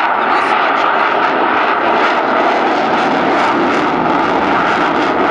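F-16 fighter jet flying a display pass with its afterburner lit: loud, steady jet engine noise with a crackle running through it.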